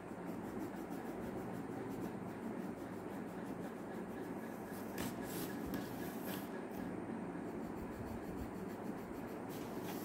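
Coloured pencil rubbing back and forth on paper in quick colouring strokes, with a few sharper, scratchier strokes about halfway through and again near the end.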